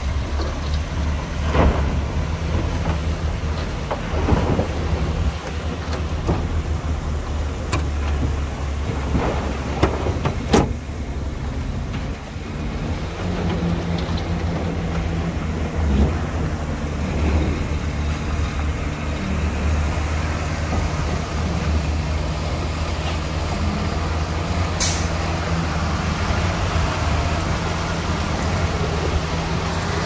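Heavy diesel earthmoving machinery engine running steadily, with a few sharp metallic clanks in the first third and a short high hiss near the end.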